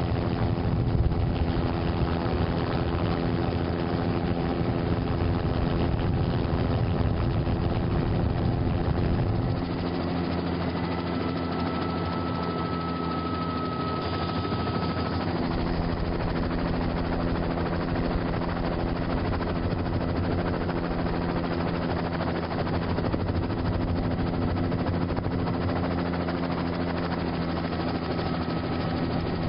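Helicopter engine and rotor running steadily, heard from on board, with a heavy low rumble that eases about a third of the way through.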